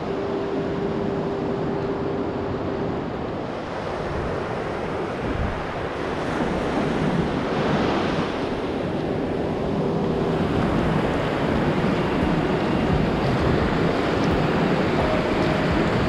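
Pacific surf breaking and washing up onto a sandy beach, a steady rush of water that swells as waves come in.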